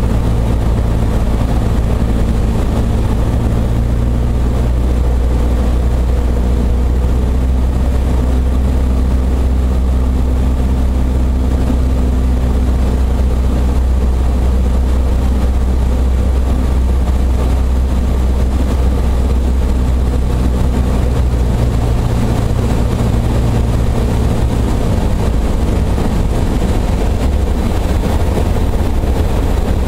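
Piston engine and propeller of a light single-engine airplane droning steadily, heard inside the cabin. The engine note drops somewhat a little past twenty seconds in, as power is brought back on final approach.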